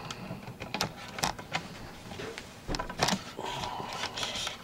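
Handling noise from a camera being moved and repositioned: scattered clicks and knocks, with a faint steady tone coming in about three and a half seconds in.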